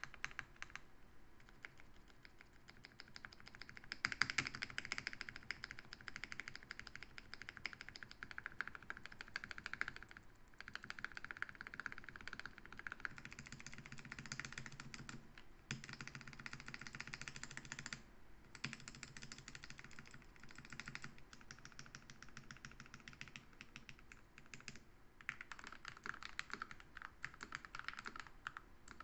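Typing on a Gamakay 87 mechanical keyboard with TTC Orange linear switches (red stem, 3-pin) lubed with 205g0: runs of rapid keystrokes with a few short pauses between them.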